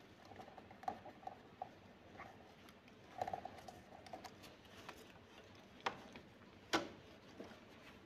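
Faint rubbing and scattered light clicks of hands handling a plastic coffee machine, with two sharper knocks late on.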